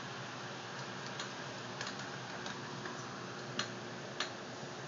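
Steady hiss with a handful of short, sharp clicks at irregular spacing; the two loudest come about three and a half and four seconds in.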